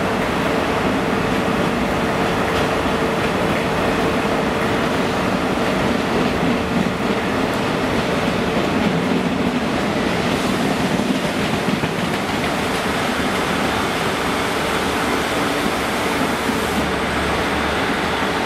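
Freight train of intermodal container flat wagons, some loaded with tank containers and many running empty, rolling past: a steady, continuous rumble of wheels on rail.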